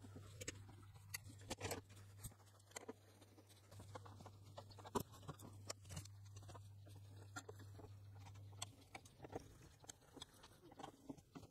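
Near silence with faint scattered clicks and light knocks of a circuit board being handled and worked loose inside an APC UPS chassis, over a faint low hum that stops about three-quarters of the way through.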